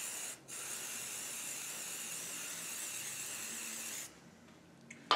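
Aerosol CA glue accelerator spraying in one long hiss, with a brief break about half a second in, cutting off about four seconds in. It is sprayed onto thin CA glue soaked into the blank's joints to set it.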